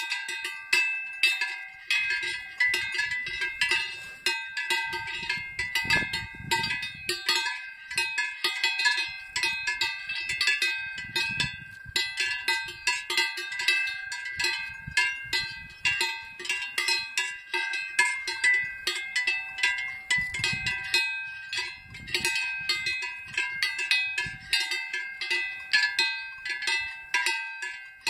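A large cowbell on a grazing cow's neck strap clanking irregularly as she moves her head in the grass: a steady stream of uneven strikes, several a second, each ringing with a clear metallic tone.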